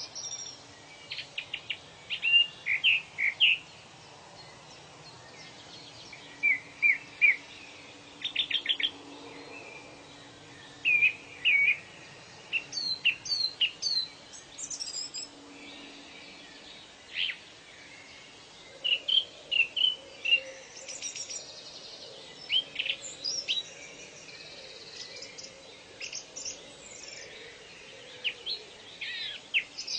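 Several birds singing and calling in short chirps and quick trills, coming in bursts every second or two, over a faint steady background hum.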